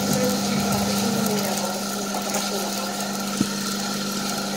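Steady hum of a running electric machine, with one sharp click about three and a half seconds in.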